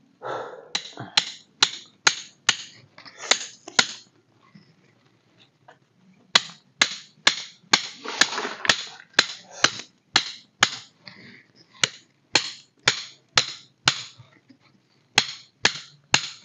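Freshly lit campfire of dry sticks crackling, with loud sharp pops about twice a second and a short lull about four seconds in.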